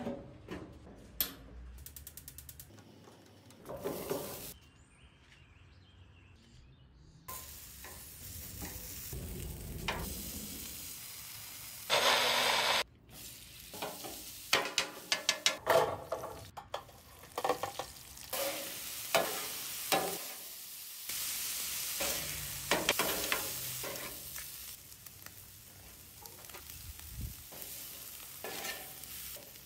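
Chorizo sizzling on a gas flat-top griddle while a metal spatula scrapes, chops and clacks against the steel cooking plate. There is a loud hiss about twelve seconds in and a run of quick sharp clacks a few seconds later.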